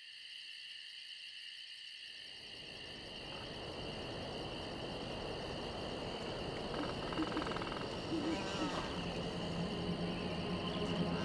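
Crickets chirping in a steady night chorus, with a low rumble building underneath from about two seconds in and a low hum joining near the end.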